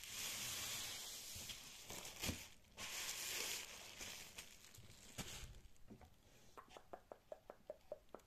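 Plastic bubble wrap crumpled and rubbed between the hands: dense crinkling in two waves over the first few seconds that then dies away. A run of small quick clicks follows near the end.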